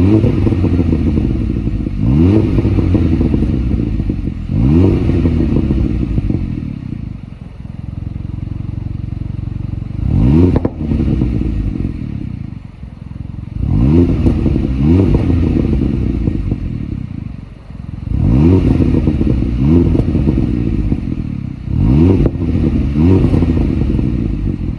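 Kia Ceed GT's 1.6-litre turbocharged four-cylinder engine and exhaust being revved again and again, each rev rising quickly in pitch and dropping back, with a steadier, lower stretch in the middle.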